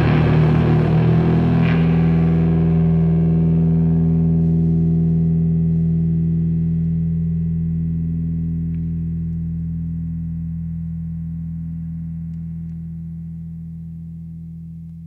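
A heavy doom rock band's final chord on distorted electric guitar, held and ringing out. A crash of cymbals and drums dies away in the first two seconds, and the low chord then fades slowly.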